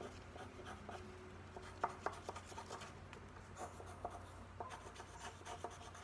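Colored pencil drawing quick short strokes on paper: a faint, irregular scratching, with one sharper tick about two seconds in.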